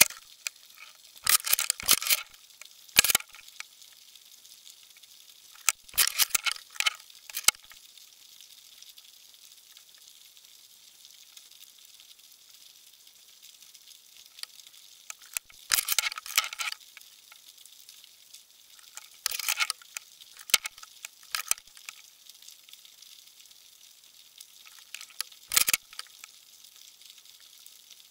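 Underwater crackling: several short bursts of sharp clicks and crackles, each lasting about a second, over a faint steady hiss.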